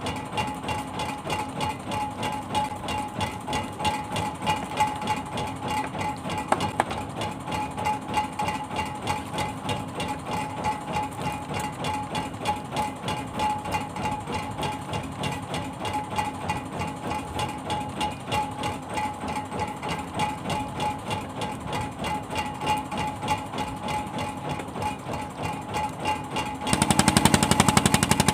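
Fishing boat's engine chugging with a steady, rhythmic knock. Near the end it suddenly gets much louder.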